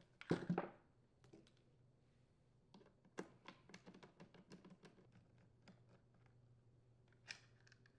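Faint handling sounds on the plastic housing of a Ryobi HT26 hedge trimmer engine: a dull thunk as the engine is turned over about half a second in, then a scatter of light clicks and taps as a Torx screwdriver is set to the screws of the recoil assembly, and one more click near the end.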